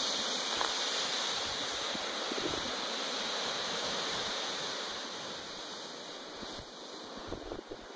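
Small waves washing onto a sandy beach, a steady surf hiss, with wind buffeting the microphone in low gusts; the surf eases off somewhat in the last few seconds.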